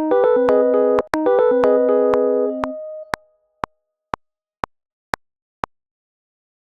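Computer-synthesised tones from a digital audio workstation: two bursts of several steady notes sounding together for about three seconds, with a brief break about a second in, then six short sharp clicks, about two a second.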